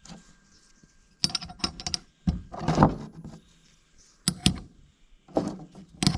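Small metal parts of a mini bike clutch clicking and clinking as they are handled, in a few short clusters with a louder clatter about two and a half seconds in.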